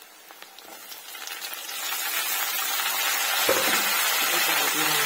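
Chopped tomatoes hitting hot oil in a kadhai with fried onion, cumin, chillies and curry leaves, and sizzling. The sizzle builds over the first two seconds and then holds steady and loud.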